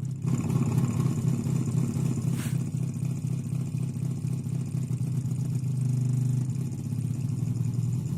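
Subwoofer mounted in a PC case, driven by a low sine-wave signal, throbbing and rattling in a steady pulse that sounds like a V8 engine running. It gets louder about a quarter of a second in.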